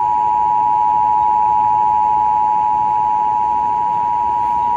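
Emergency Alert System attention signal: a steady two-tone alarm (853 and 960 Hz) held unbroken, announcing that a severe thunderstorm warning is about to be read.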